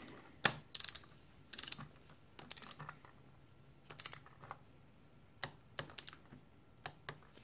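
Ratchet of a socket wrench clicking in short, irregular bursts of a few clicks each as a cylinder head nut is run down toward 15 newton metres, the first stage of the head torque sequence.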